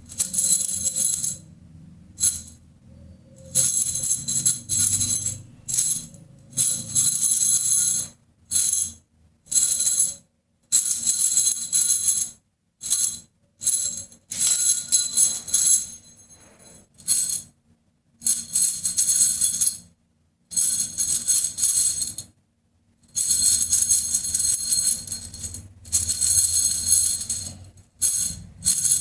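Bangles on a wrist jingling and clinking together as they are shaken, in repeated bursts of a second or several seconds with bright, high ringing, broken by sudden cuts to silence.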